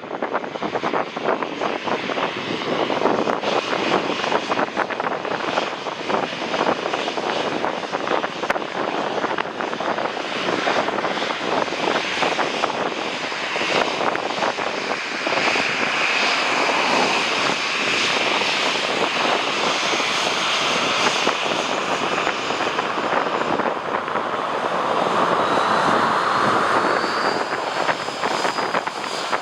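Jet airliner's engines roaring as it flies past on landing approach, with a steady high whine in the middle, mixed with gusty wind buffeting the microphone.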